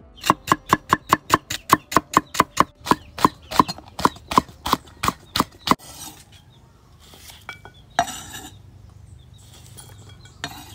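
Cleaver chopping on a wooden cutting board: a quick, even run of sharp knocks, about four a second, each with a short metallic ring. It stops about six seconds in, and is followed by a couple of single knocks.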